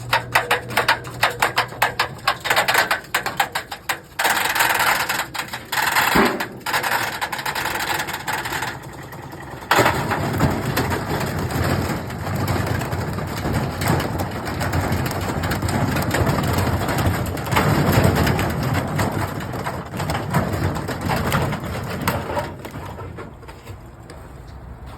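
Damaged washing machine running hard: rapid knocking and rattling for the first few seconds, then a sudden louder, steady rattling noise from about ten seconds in that dies down near the end.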